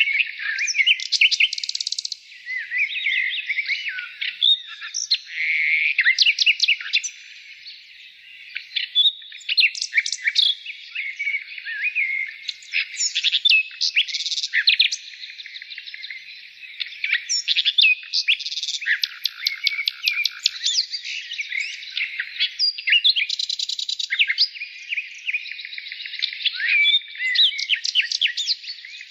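Several birds singing together, a continuous chorus of quick, high chirps and trills that overlap and never pause.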